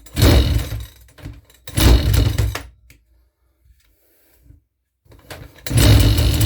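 Recoil pull-starter of a Makita EM2600L two-stroke petrol strimmer being pulled three times, each pull a loud whirring rush of about a second, with a pause before the last; the engine turns over but does not catch.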